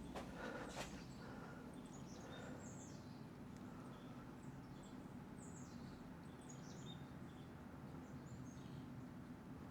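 Faint birds chirping, short falling calls repeated every second or so over a low steady hum, with a couple of light clicks in the first second.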